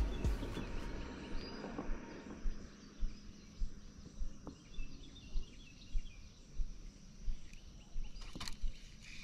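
Quiet creek ambience: faint bird chirps and insects over soft low bumps every second or so, with the tail of background music fading out at the start. A brief sharp rattle comes near the end.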